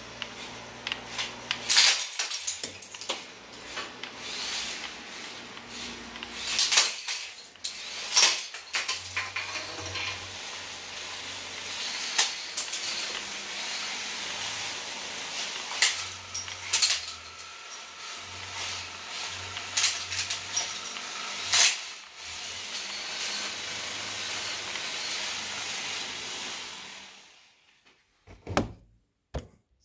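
Lego vertical-spinner combat robot running, its spinning weapon and drive motors whirring, with repeated sharp plastic clacks as the spinner strikes and scatters a Lego set on a concrete floor. The motors stop near the end, followed by a few light clicks.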